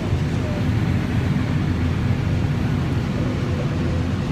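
Combine harvester running with a steady low drone, heard from inside the cab.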